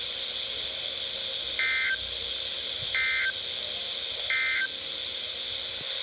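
NOAA weather radio playing three short bursts of SAME data tones, about a second and a half apart, over a steady hiss. This is the end-of-message code that closes the Required Weekly Test broadcast.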